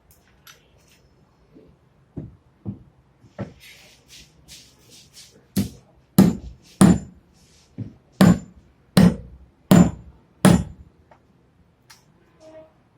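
Hammer blows: a few light taps, then a run of about seven heavy strikes a bit under a second apart, some with a short metallic ring.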